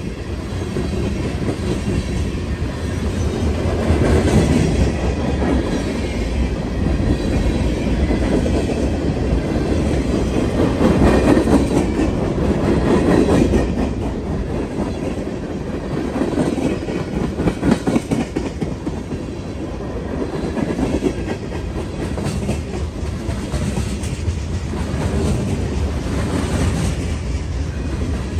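Norfolk Southern manifest freight train's tank cars and hoppers rolling past at close range: a steady rumble of steel wheels on rail with clicking over the joints, rising and falling in loudness as each set of wheels goes by.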